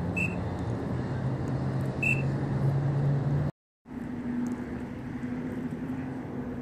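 Outdoor background noise with a steady low hum and two short high chirps about two seconds apart. The sound cuts out for a moment about halfway through, then returns as a similar noisy background with a higher steady hum.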